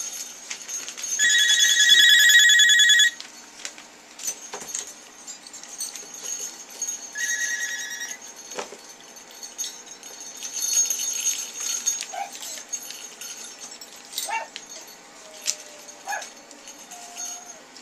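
Sleigh bells shaken in a fast, loud jingle for about two seconds, then briefly and more softly again around seven seconds in. Later come short, high whimpers and yips from Toy Poodle puppies, with light clicks and taps.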